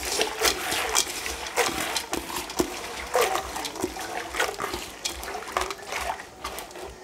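Hands swishing dried omena (Lake Victoria sardines) around in water in a metal pot to wash them: irregular splashing and sloshing.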